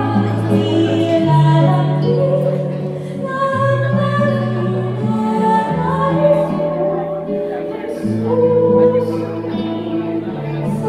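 A woman singing a ballad into a microphone over instrumental accompaniment, holding long notes over a bass line that moves to a new note every second or two.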